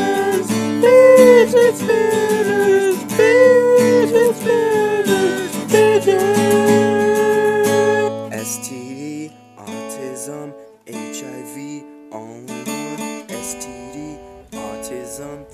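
Acoustic guitar music. For about the first eight seconds a held, gliding melody line sits over the guitar; after that the guitar plays on alone in separate plucked notes and chords with short breaks between them.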